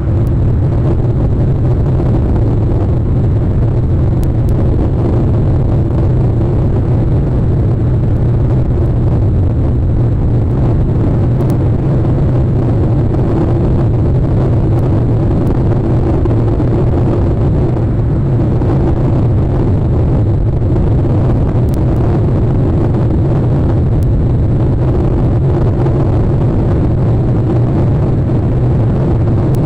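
Steady, loud low rumbling noise that holds unchanged throughout, with no distinct calls or knocks standing out.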